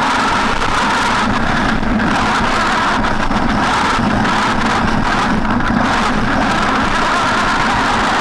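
Traxxas E-Maxx electric RC monster truck running, its motors and gears giving a steady whine that drifts slowly in pitch with speed over a constant rushing noise.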